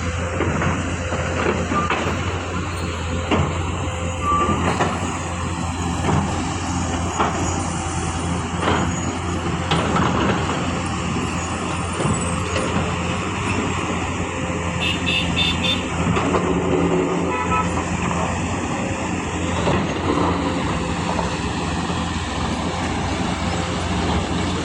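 Heavy diesel construction machinery running steadily, with scattered clanks and knocks, and a short series of horn-like toots about fifteen seconds in.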